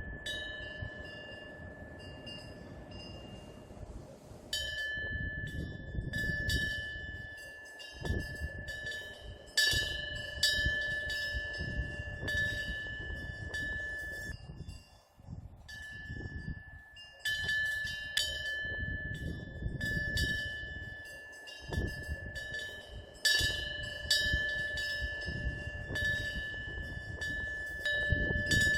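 Korean temple wind bell (pungyeong) ringing as the wind swings its clapper, struck irregularly many times, each strike sustaining a clear high ringing tone. A low rush of wind comes and goes underneath.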